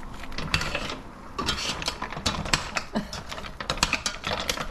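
A stainless steel pot lid is lifted off, then a metal spoon stirs steamed mussels in their shells, with quick clattering clicks and scrapes of shell and spoon against the pot.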